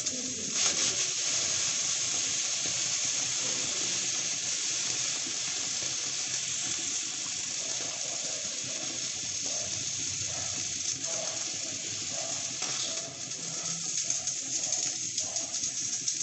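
Aluminium stovetop pressure cooker venting at its weighted valve: a steady hiss of escaping steam, with frothy starchy water from the cooking rice spraying out around the lid.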